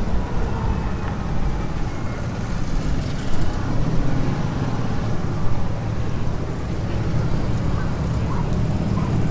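Engine running with a steady low rumble.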